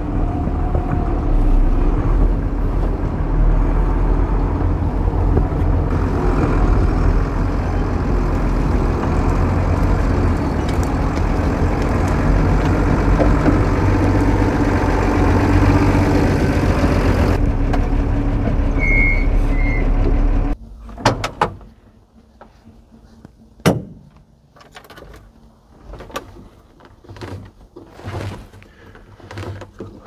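Mercedes-Benz Unimog truck's diesel engine running steadily, then shut off abruptly about two-thirds of the way through, with two short beeps just before. After it stops come a few sharp clunks and knocks.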